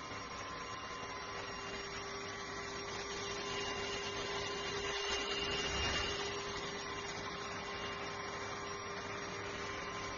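K7 Pro cordless handheld vacuum cleaner running steadily, a constant motor whine over the rush of air, swelling a little for a couple of seconds in the middle.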